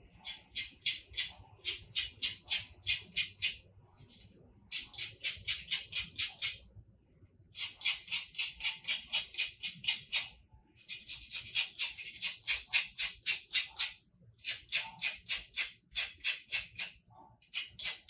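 A grater rasping the peel of a lime in quick, even strokes, about three to four a second, in five spells of a few seconds with short pauses between: zest being grated over the pudding.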